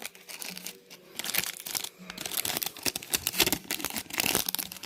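Trading-card pack wrapper crinkling and tearing as it is slowly peeled open by hand, a run of irregular crackles.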